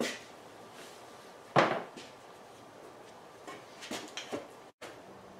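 A few short knocks and bumps as a two-handled fleshing knife and a beaver pelt on a fleshing board are handled, the loudest about a second and a half in. The sound cuts out for a moment near the end.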